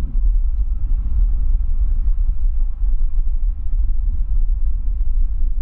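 Boeing 787-9 jet engines running at taxi power as the airliner taxis, heard from across the airfield as a low, steady rumble with faint steady tones above it.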